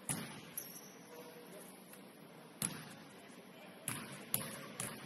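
A basketball bouncing on a gym floor: six sharp bounces at uneven spacing, each one echoing in the gym.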